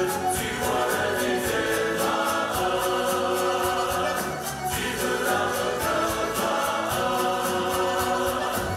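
A mixed choir of male and female voices sings a Circassian folk song in chorus over instrumental accompaniment with a steady beat.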